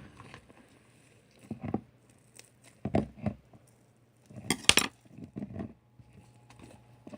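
A glass jar or mug clinking and knocking in four short bursts, the loudest about four and a half seconds in, as slime is scraped out of it.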